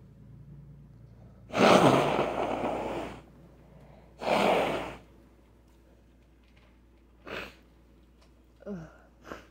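A person sneezing twice, the first sneeze the loudest and longest, the second shorter. Short breaths follow near the end, with a brief voiced sound falling in pitch.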